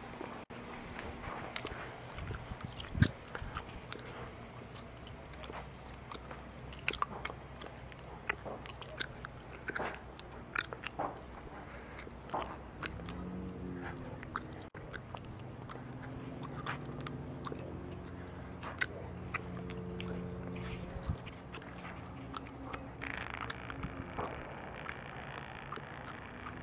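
Gum chewing close to the microphone: irregular smacks and clicks throughout. A low steady hum comes in about halfway and holds for several seconds.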